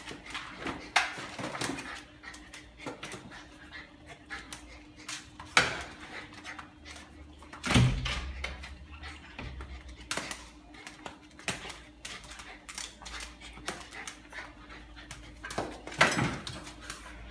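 A husky playing on a hard floor: scattered knocks and scuffs of paws and claws, with a heavier thump about eight seconds in, mixed with the dog's own sounds.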